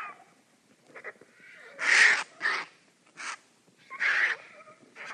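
Vultures squabbling over food: harsh hisses and rasping calls in a few short bursts, the loudest about two seconds in and another near four seconds.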